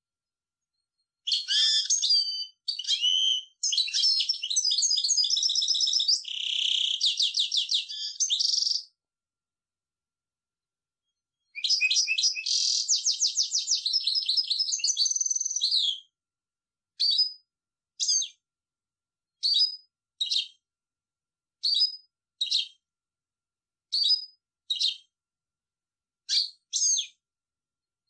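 European goldfinch singing: two long phrases of fast trills and tinkling notes, then a series of short two-note calls repeated about every two seconds.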